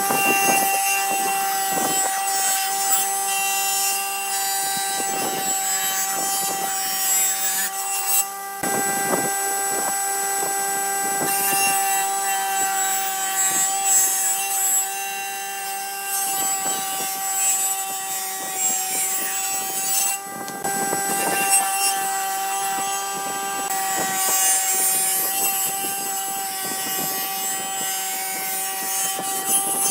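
Table saw running with a steady whine, its blade ripping bevels along pine and hardwood strips. The cutting passes come again and again as bursts of sawing noise over the motor's hum.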